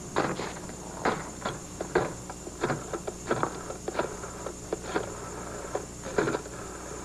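A corded desk telephone being handled: the receiver lifted and a number dialled, heard as a run of short, irregular clicks and knocks.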